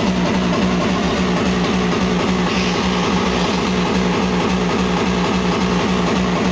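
Loud hardcore techno: a distorted, droning bass tone repeated in rapid, even pulses.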